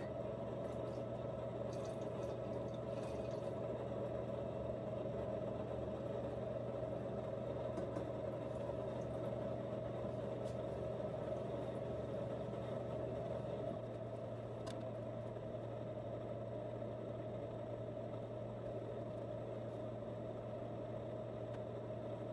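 Steady hum of running equipment, like a motor or fan, with a few faint ticks; its lowest part drops slightly a little past halfway.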